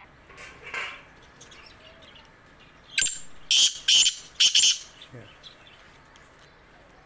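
Black francolin calling: three loud, harsh notes in quick succession about halfway through, just after a sharp click.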